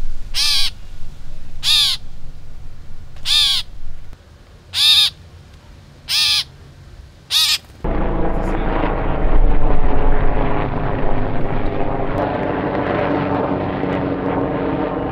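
A bird gives six harsh, cawing calls about one to one and a half seconds apart. At about eight seconds the sound cuts abruptly to a loud, steady engine noise from an aircraft flying overhead.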